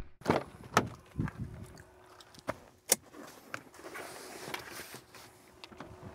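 A series of scattered sharp knocks and clicks, the loudest about three seconds in, over a faint hiss.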